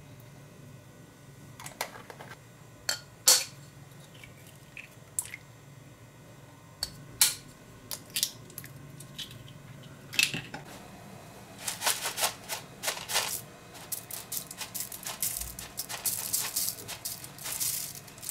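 Hands-on kitchen prep: scattered sharp taps and clicks as quail eggs are cracked with a knife over a plastic mixing bowl. Over the last several seconds comes a dense patter of small clicks as dry rolled oats are poured into the bowl.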